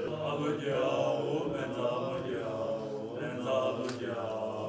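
Tibetan Buddhist monks chanting prayers together: several voices running on steadily in unison.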